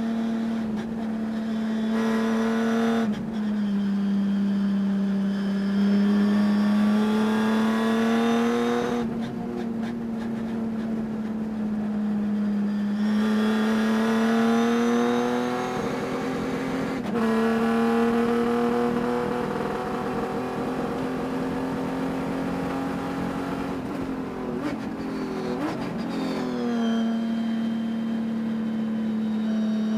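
Race car engine heard close, on board at race pace. Its pitch climbs slowly and drops sharply several times as it is driven through the corners. The engine has a high-RPM miss that the driver says can be heard during the race.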